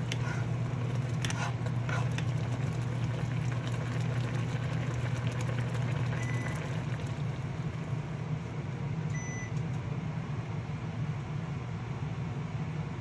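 Steady low electrical hum of a running appliance, with two short electronic beeps about six and nine seconds in.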